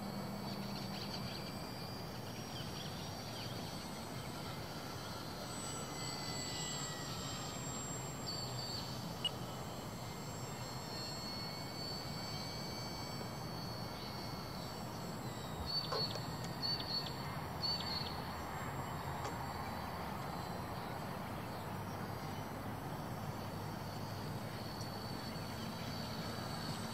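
Faint, steady whine of a distant electric RC plane's motor and propeller (an H-King Cessna TTX on lipo power) over outdoor background noise, with a few short high chirps about two-thirds of the way through.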